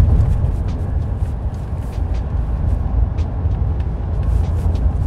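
Inside the cab of a Chevy 2500 HD pickup with the 6.6 L L8T gas V8, towing at highway speed: a steady low engine drone mixed with tyre and wind noise. The truck is starting up a grade in tow/haul mode and losing speed, still in its high gear without a downshift.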